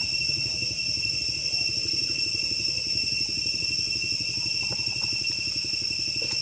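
A small engine running steadily, like a motorcycle idling, as a fast-pulsing low rumble under a steady high-pitched whine held at two or three pitches.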